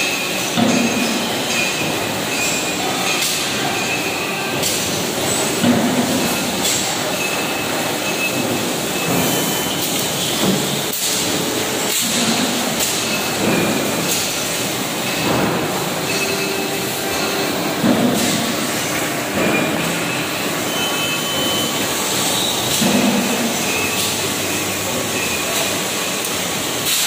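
630-ton servo-hydraulic press running, heard as a loud, steady machinery noise. A low surge recurs about every five to six seconds, and a few sharp knocks come partway through.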